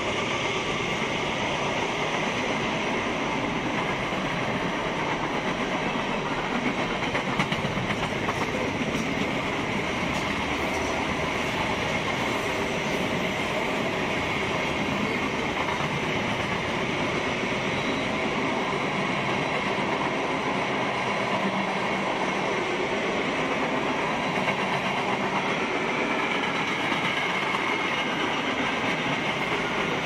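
Freight train cars rolling past at speed, a steady continuous noise of steel wheels running on the rails.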